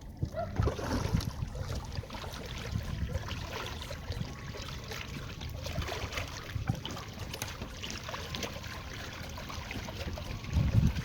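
Water sloshing and trickling around a small fishing boat, with scattered light knocks; a louder low rumbling comes in near the end.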